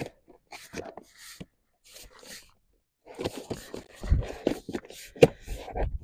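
Plastic Tupperware containers and lids being handled and pressed, a run of clicks, scrapes and light knocks. It goes quiet briefly about halfway, then gets busier, with one sharp click near the end. The lids won't close properly.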